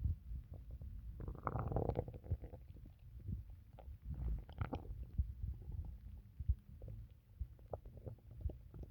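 Stomach gurgling after drinking water: a low, continuous rumble with bubbly gurgles, loudest about a second and a half in and again around four and a half seconds in.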